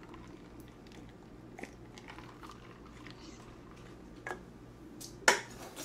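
Drinking from a glass of cola on ice close to the microphone: faint sips and small crunchy clicks, with a couple of sharper clinks near the end.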